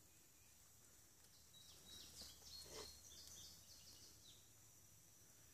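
Near silence with a run of faint, short, high chirping calls, each falling in pitch, from about one and a half to four and a half seconds in.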